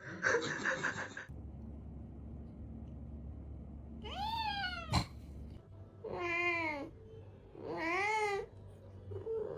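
A cat meowing repeatedly: three long, drawn-out meows, each rising then falling in pitch, about two seconds apart, with a fourth starting near the end.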